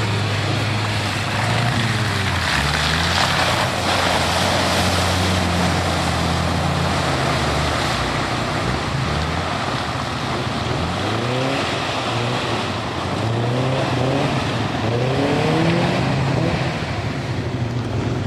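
Lifted pickup truck's engine revving hard through a mudhole, its pitch rising and falling again and again as the mud tires spin. There is a rush of splashing mud and water a few seconds in.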